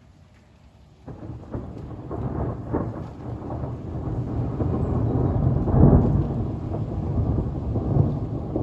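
Rolling thunder: a rumble breaks in suddenly about a second in, builds to its loudest a little past the middle, then keeps rumbling and crackling.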